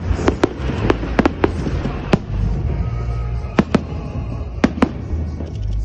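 Fireworks salute going off: about ten sharp bangs at irregular intervals, some in quick pairs, over a continuous low rumble.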